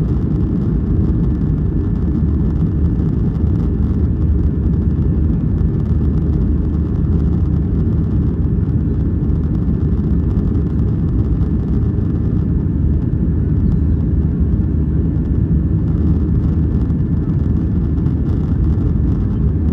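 Boeing 737-500 in its climb after takeoff, heard inside the cabin over the wing: a deep, steady rumble of its CFM56-3 jet engines and the air rushing past the fuselage.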